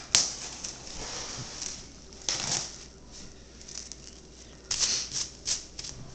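A sharp click, then plastic wrap rustling and crinkling in short bursts as it is handled, loudest about two seconds in and in a cluster near the end.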